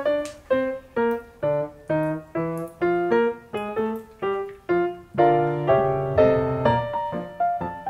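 Background piano music: single notes struck about twice a second, each fading away, with fuller chords held about five seconds in.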